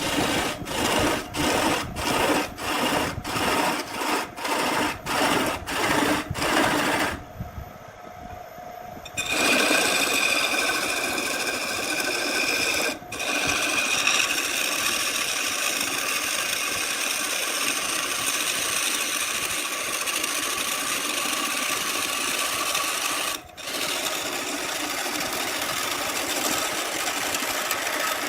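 Woodworking tool strokes at about two a second for several seconds. After a short pause, a power tool runs steadily with a faint whine, breaking off briefly twice.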